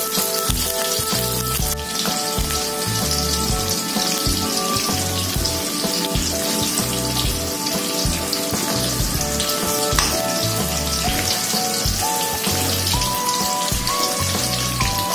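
Cornstarch-coated eggplant pieces deep-frying in hot oil in a wok, a steady crackling sizzle, over background music.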